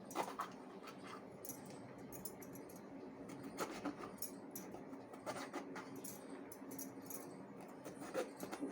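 Knife cutting capsicums (bell peppers) into quarters: scattered crisp cuts and knocks of the blade on the board.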